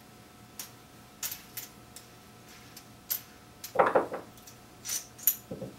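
Scattered small metal clicks and clinks, with a louder clunk a little past the middle, as a door knob is pulled off its lock with a Quickpull knob puller and handled.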